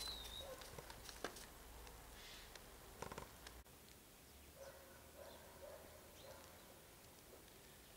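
Near silence: faint winter outdoor ambience with one short high bird chirp at the very start, a few soft knocks and clicks, and faint distant animal calls near the middle.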